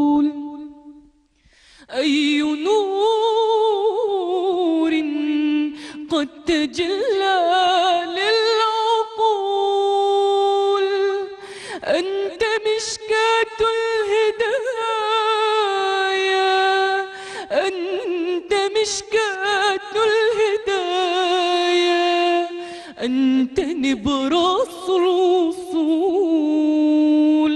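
A woman singing an Arabic Islamic devotional song (inshad) unaccompanied. She sings long, ornamented held notes with vibrato, in phrases broken by short pauses, after a brief break about a second in.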